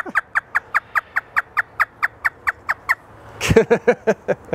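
Grey parrot imitating a hysterical laugh: a fast, even run of short 'ha' notes, each falling in pitch, about five a second for nearly three seconds. A few louder, lower laugh-like calls follow near the end.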